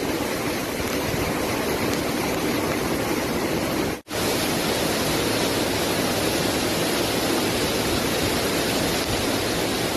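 Floodwater rushing in a steady, even torrent across a flooded road. It cuts out for an instant about four seconds in, then carries on.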